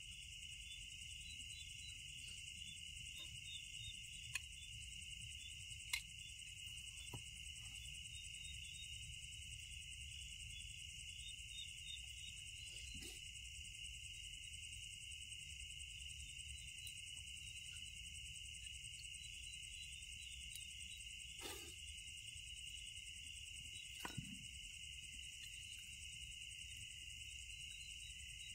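A steady chorus of crickets and other night insects trilling without a break, with a few faint knocks now and then.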